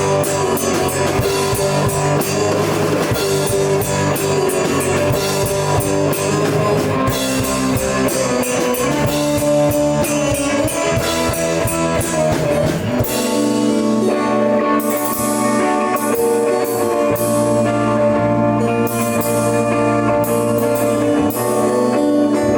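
Live prog-rock band playing, with guitar and a drum kit, picked up on a camera microphone. About halfway through, the dense drumming thins out and held chords carry the music.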